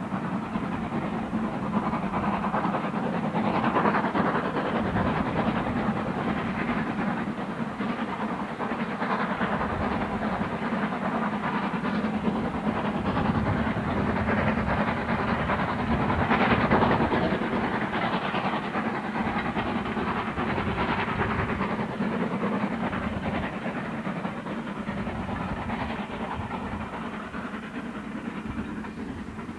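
Steam locomotive working a train of coaches past, a continuous mix of exhaust and train running noise. It swells about four seconds in, is loudest around sixteen seconds, then gradually fades as the train draws away.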